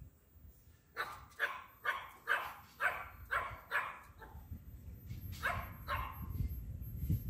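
A dog barking off-camera: a quick run of about seven barks, roughly two a second, then two more after a short pause. A low rumble builds underneath in the second half.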